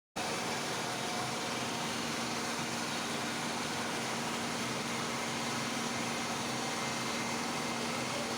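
A steady machine hum with a constant drone and an even hiss. It starts abruptly just after the beginning and holds unchanged.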